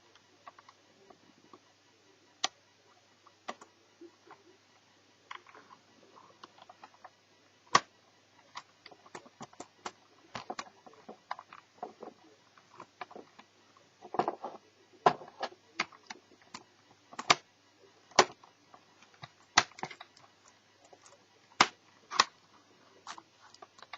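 Asus Eee PC netbook handled by hand during disassembly: scattered, irregular clicks and taps of its case and parts. They are sparse at first and come more often from about a third of the way in, a few of them sharp.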